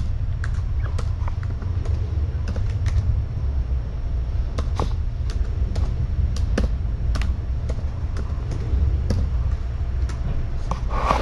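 Irregular light clicks, two or three a second, like keys being typed, over a steady low hum.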